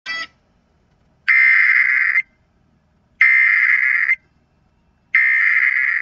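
Emergency Alert System SAME header: three identical bursts of buzzing digital data tone, each about a second long with about a second of silence between them, the encoded header that opens an EAS flood warning. A short blip comes at the very start.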